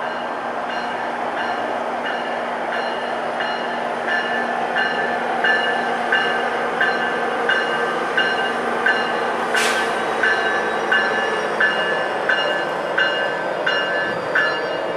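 NJ Transit PL42AC diesel locomotive running steadily as it approaches at the head of a commuter train. A bell dings about one and a half times a second and grows louder from about four seconds in. A brief sharp high sound comes about two-thirds of the way through.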